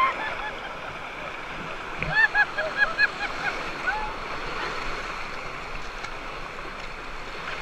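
Small waves breaking and washing over a shallow sandy shore, a steady rush of surf. About two seconds in, a woman laughs in a quick run of short high bursts lasting a couple of seconds.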